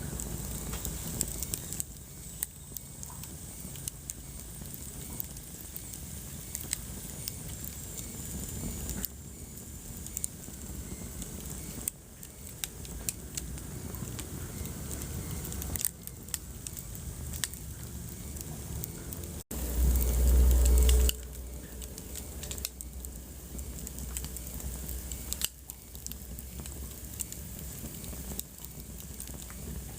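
Wood fire crackling and popping in a fireplace over a steady hiss, with a faint thin whistle for a few seconds early on. About twenty seconds in comes a brief loud low rumble lasting about a second and a half.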